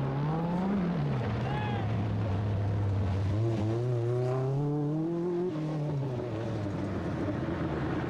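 Group B rally car engine revving hard on a gravel stage. Its pitch climbs and drops sharply in the first second, then rises steadily for about two seconds and falls away as the car lifts off.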